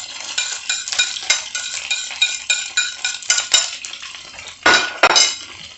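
A metal utensil scraping and clinking against a pan in quick, irregular strokes as onions and ginger are stirred in hot oil, with frying sizzle underneath. About five seconds in there is one louder, longer scrape.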